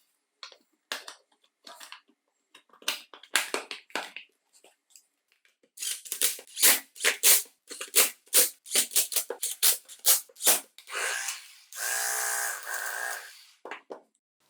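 Small hard parts clicking and knocking as they are handled, in quick runs. Near the end comes a steady buzz of about a second and a half.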